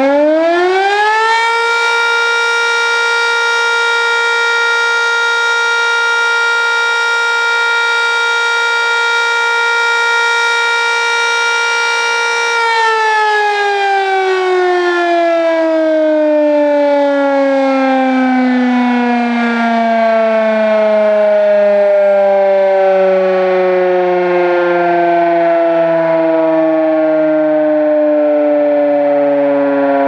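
GCS Model 5 eight-port siren sounding its noon test: it finishes winding up in the first second or so, holds one steady loud tone for about eleven seconds, then its power is cut and it winds down in a long, slow falling tone.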